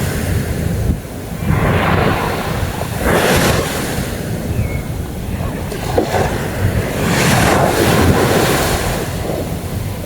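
Sea waves breaking and washing up on a beach, surging every few seconds, with wind buffeting the microphone.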